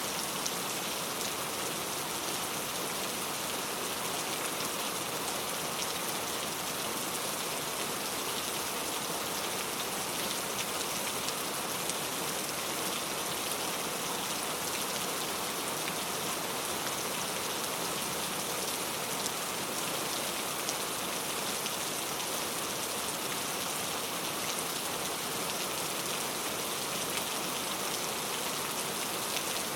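Very heavy rain falling steadily, a dense hiss of drops hitting a surface with many fine individual drop impacts.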